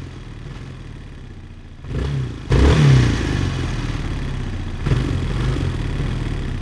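Quad bike engine running low for about two seconds, then revving up about two seconds in and running on steadily as the quad drives off.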